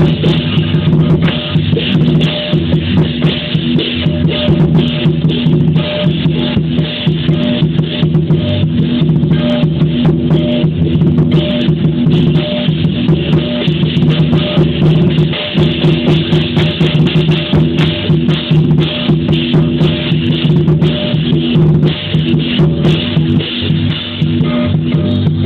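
Lion dance percussion band playing: a big drum beaten fast and steadily, with clashing cymbals and ringing gongs, keeping up a dense, unbroken rhythm.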